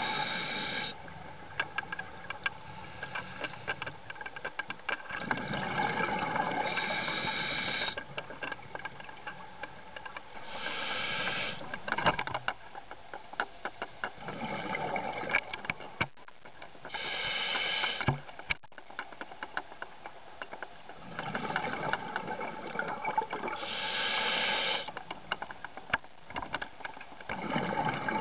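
A scuba diver breathing underwater through an open-circuit regulator. Hissing inhalations through the regulator come every few seconds, alternating with exhaled bubbles full of small clicks.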